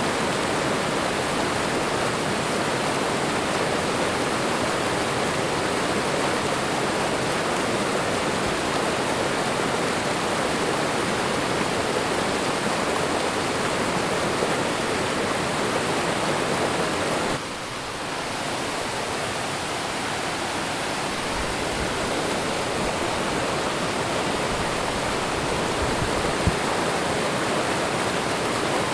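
Waterfall: water pouring in a steady, even rush. The level drops suddenly a little past halfway and slowly builds back.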